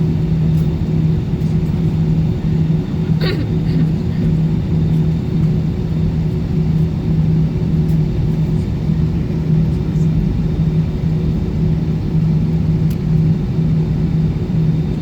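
Airbus A320 cabin noise: a steady rumble of the jet engines and airflow with a constant low hum, holding an even level.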